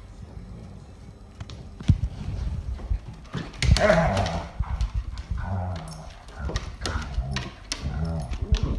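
Two Airedale terriers, an adult and a puppy, play-fighting: low, uneven growls and mouthing noises with claws clicking and scrabbling on a hardwood floor, louder and busier from about three and a half seconds in.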